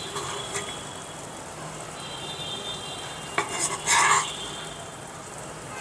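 Metal spoon scraping and clinking against a non-stick karahi and a ceramic plate while curry is served, with a cluster of sharp knocks and a louder clatter about three and a half seconds in.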